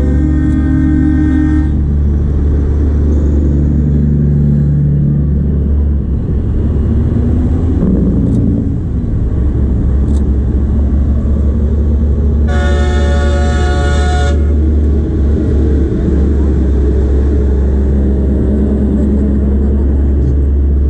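Semi trucks' diesel engines rumbling steadily as they roll slowly past. A truck horn blast ends about two seconds in, and a louder horn blast of about two seconds sounds about twelve seconds in.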